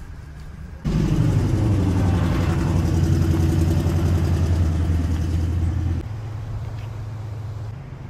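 An engine running steadily, a loud low hum that comes in suddenly about a second in and drops off sharply about six seconds in, leaving a fainter low hum.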